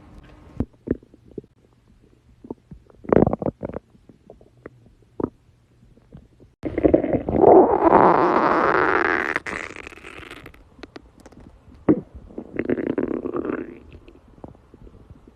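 A person's stomach growling. Scattered short gurgles and pops come first, then a long, loud rumble of about four seconds around the middle, and a second, shorter rumble a few seconds later.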